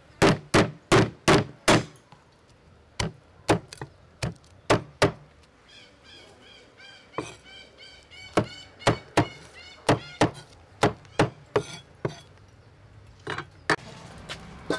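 Cleaver chopping lemongrass on a thick wooden chopping block: sharp knocks in quick runs of about two to three a second, with short pauses between the runs.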